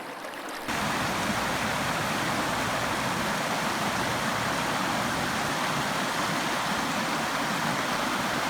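A steady, even rushing noise that starts abruptly under a second in.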